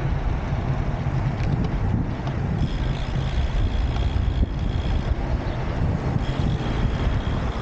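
Wind buffeting the microphone on a moving road bike, a steady heavy rumble. A faint thin high tone comes in twice.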